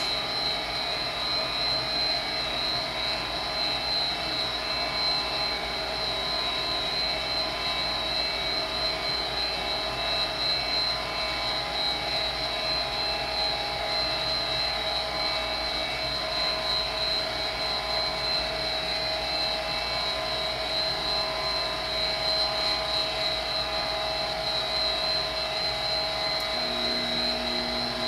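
Vintage Armstrong gas furnace running with its panel off: the inducer motor whines steadily with a high tone while the gas burner fires. Near the end the main blower fan kicks on, adding a low hum.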